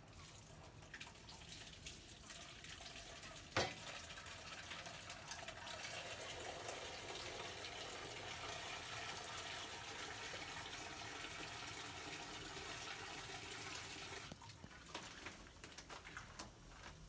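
Small chopped pieces frying in hot oil in a wok over a gas flame, a steady sizzle that swells after a few seconds and drops off about three seconds before the end. A single sharp knock about three and a half seconds in.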